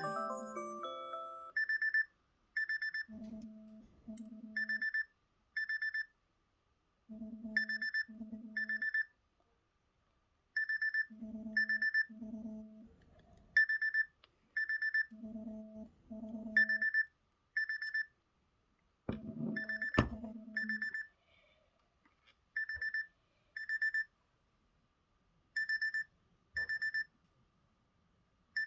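Samsung Galaxy phone and watch timer alarms going off together: a high double beep repeats about every three seconds. A lower double buzz comes about every four seconds and stops after a sharp click about 20 seconds in. A short melodic alarm tune ends just at the start.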